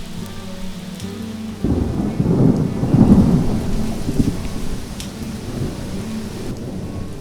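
Steady rain with a roll of thunder that builds about a second and a half in, peaks near the middle and rumbles away; sustained low musical notes run underneath.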